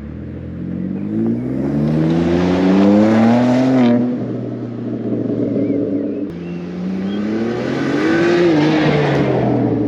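BMW M2's exhaust under hard acceleration: the engine note climbs steadily in pitch, breaks off about four seconds in, then climbs again from about six seconds before easing off near the end.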